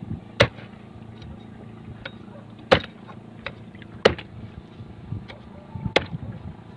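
A heavy blade chopping into a blue marlin carcass on a wooden board: four hard, sharp strikes about one and a half to two seconds apart, with lighter knocks between them, over a steady low hum.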